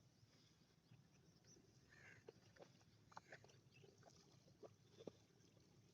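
Near silence: faint outdoor background with a few scattered faint clicks and a brief faint chirp about two seconds in.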